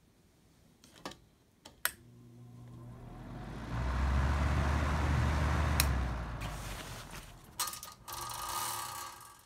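Antique NuTone wall exhaust fan with a Morrill unit-bearing motor: switch clicks, then the motor hums and the fan spins up into a loud, steady rush of air before easing down. A couple more clicks follow, then a shorter burst of fan noise with a faint whine that cuts off suddenly.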